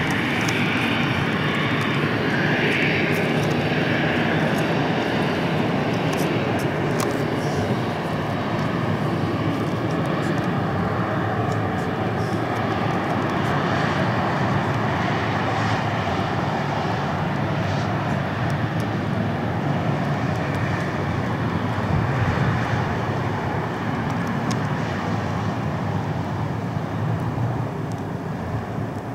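Boeing 737-400's jet engines running at high power during the takeoff roll, a steady dense roar with a high whine over it for the first few seconds. The sound fades somewhat near the end.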